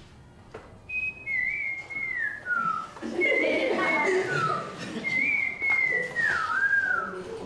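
A man whistling an imitation of a bird's call: three phrases, each starting on a high note and sliding down in wavering steps.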